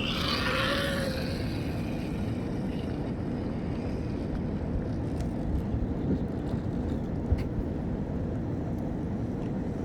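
Jet airliner engines rumbling steadily.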